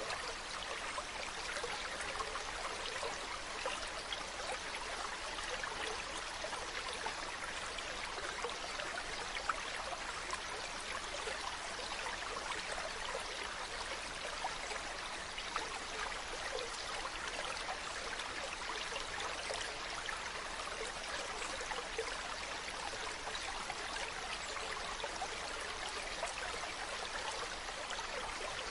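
Mountain stream running: a steady, even rush of water with many small splashes and trickles in it.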